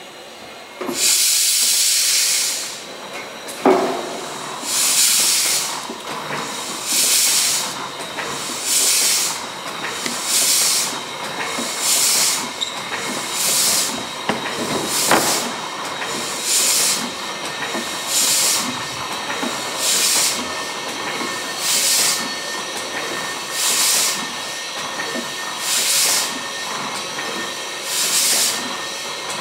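Single-cylinder Corliss mill steam engine built by Douglas & Grant of Kirkcaldy, started on steam: a long hiss as steam is let in about a second in, a single knock a few seconds later, then a regular hiss of steam about every two seconds as the engine turns over slowly.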